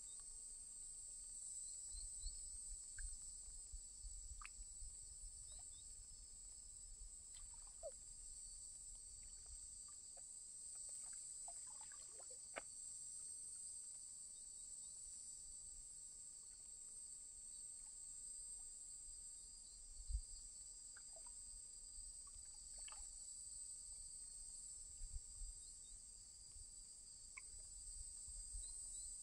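A steady, high-pitched chorus of insects, faint and unchanging, with scattered soft low thumps and a few brief chirps and clicks over it.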